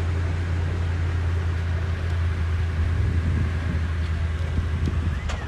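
A vehicle engine running steadily with an even low hum, with a faint click near the end.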